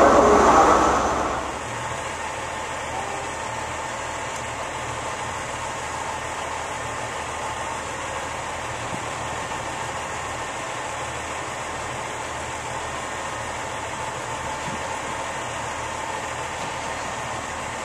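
Noise of a passing HST power car fading out over the first second and a half, then a steady low diesel engine hum with no horn.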